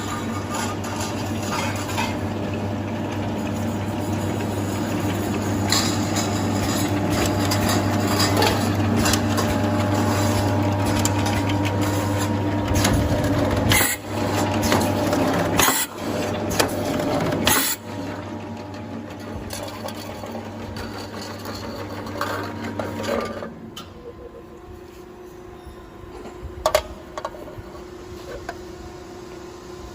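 Electric can seaming machine running with a steady motor hum and mechanical noise, and a few sharp clicks near the middle. About three-quarters of the way in it drops to a quieter steady hum, with a couple more clicks.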